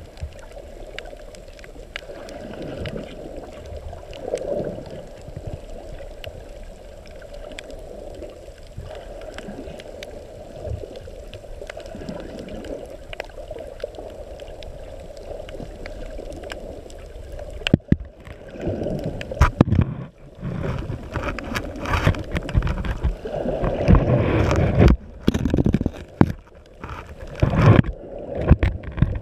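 Muffled underwater sound picked up by a GoPro in its waterproof housing: water swelling and easing around the case in a low rumble. From about two-thirds of the way in, louder irregular knocks and rubbing on the housing break in.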